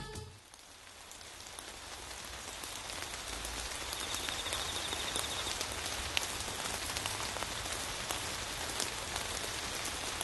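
Steady rain falling on a surface, an even hiss with scattered drop ticks, fading in over the first two seconds as the music cuts off.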